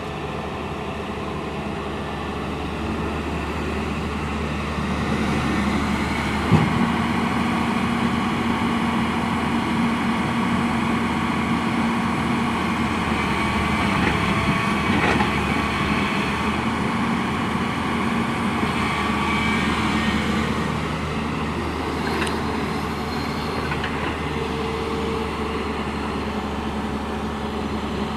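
Diesel engine of heavy farm or earthmoving machinery running steadily, working harder for a stretch in the middle, with a sharp clank about six and a half seconds in.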